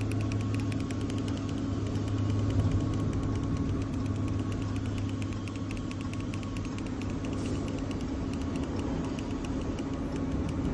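Key fob button clicking quickly and evenly, about six presses a second, as it is pressed over and over to put the 2020 Ram through key learning, over a steady low hum in the truck's cab.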